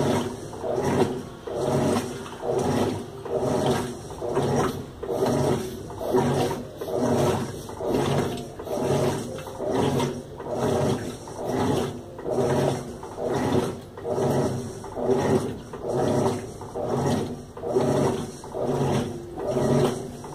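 Top-loading washing machine agitating: the motor hums and the water swishes in even strokes, a little more than once a second, as the agitator turns back and forth through the wash.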